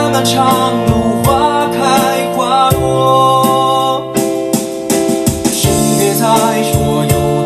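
A Chinese pop ballad played on an electric keyboard with a steady beat and a sung melody line.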